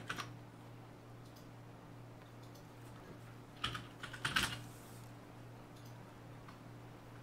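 Computer keyboard typing in short bursts: a few keystrokes at the start and a quick run of keystrokes about four seconds in, over a steady low hum.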